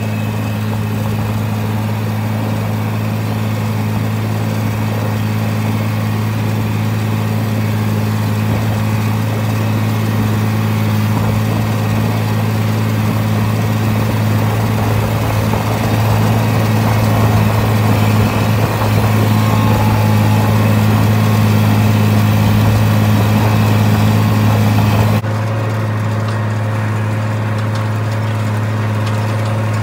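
International Harvester tractor engine running steadily under load while pulling a field cultivator through the soil, a constant low drone. A rushing hiss over it drops near the end while the engine note carries on unchanged.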